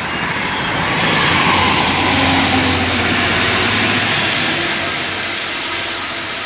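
A train passing at speed: a steady, loud rush of wheel and air noise, with a thin high-pitched squeal coming in near the end.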